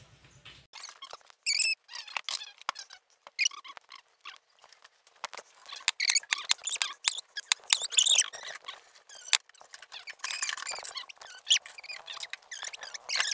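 Young coconut meat being scraped from the shell: irregular scratchy strokes with short squeaks, quick and uneven throughout.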